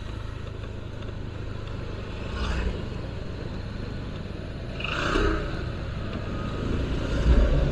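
Street traffic: a steady low engine rumble, with vehicles passing about two and a half and five seconds in, and the rumble swelling near the end.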